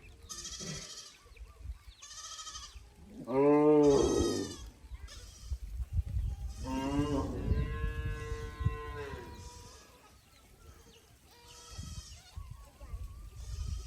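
Small livestock bleating: a string of quavering calls, the loudest and deepest about four seconds in and a long drawn-out one from about seven to nine seconds, with fainter calls near the end.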